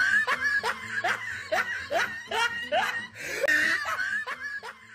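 Canned laughter in quick repeated bursts, cut in right after the punchline of a spoken joke.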